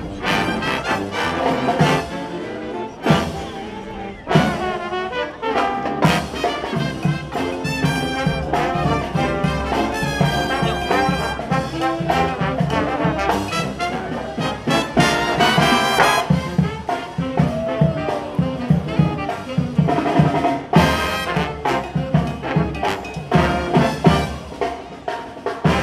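A brass band playing, with a steady beat underneath.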